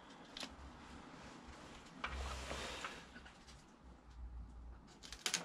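Faint rubbing and rustling of a sticker being pressed onto a metal tool chest lid by hand, with a few light clicks near the end.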